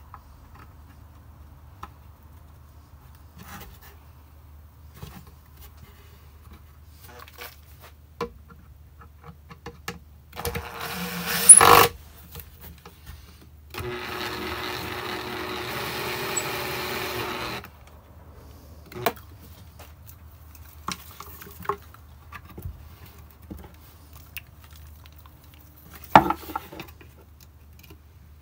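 Cordless drill-driver running into the wooden nest box: a short, very loud burst about ten and a half seconds in, then a steady run of nearly four seconds from about fourteen seconds. Between the runs, small clicks and knocks of handling parts, with a sharp knock near the end.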